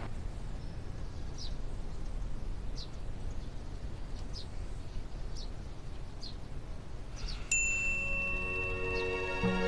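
Quiet room tone with a few faint short ticks, then a bright chime rings out suddenly about three-quarters of the way in and soft background music with sustained tones begins under it.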